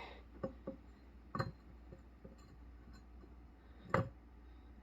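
A few light, sharp clicks and knocks of metal and hands on a wheel sitting on a static bubble balancer, the loudest about four seconds in.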